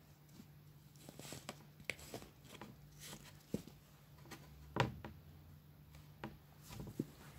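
Hands scooping and packing kinetic sand into a small plastic mould: soft scrapes and scattered light taps and knocks, the loudest knock a little under five seconds in, over a low steady hum.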